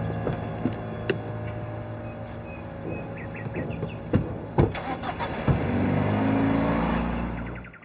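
A car door thumps shut, then a black sedan's engine pulls away, rising in pitch as it accelerates.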